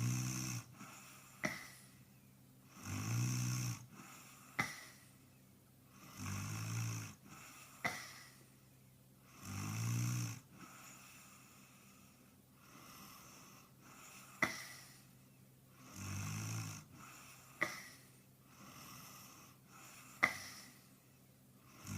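A sleeping man snoring in a regular rhythm, one snore about every three seconds. Each snore is followed by a short sharp click. The audio is sped up and raised in pitch as a nightcore edit.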